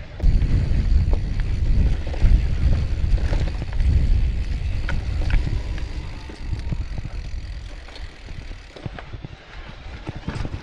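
Mountain bike riding a trail: wind rumble on the microphone and tyre noise, with frequent short clicks and rattles from the bike. It is louder for the first several seconds, then eases off.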